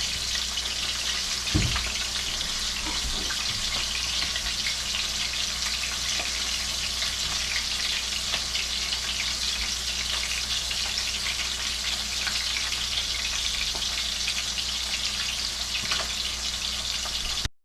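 Fish frying in hot oil: a steady sizzle with small crackles and pops, and a light knock about a second and a half in.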